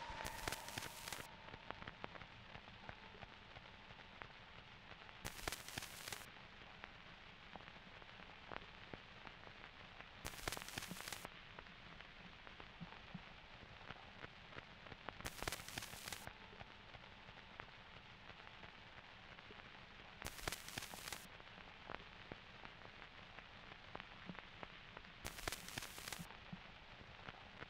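Faint crackling static and hiss, with a louder burst of hiss about a second long every five seconds.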